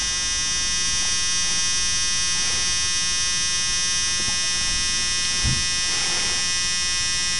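A steady electric buzz in the van's cab, even in pitch and level, while the manual glow plugs are switched on and heating before a cold start of the 6.9L IDI diesel.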